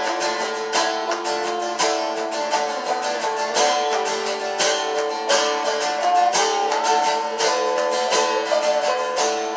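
Acoustic string band playing an instrumental break of a folk tune: a steady strummed rhythm under a picked melody line.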